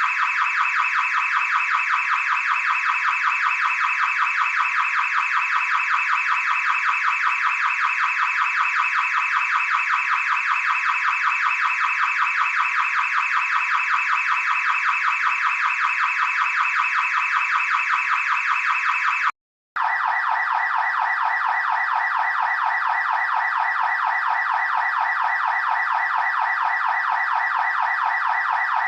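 Car alarm siren sounding with a fast warbling pulse. It cuts off about two-thirds of the way through, and after a brief gap a second, lower-pitched car alarm tone starts.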